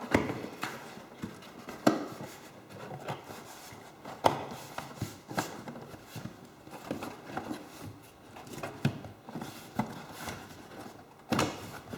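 Irregular knocks, taps and scraping as a piece is pushed and worked up under the ledge on the bottom of a recliner, with the louder knocks a couple of seconds apart.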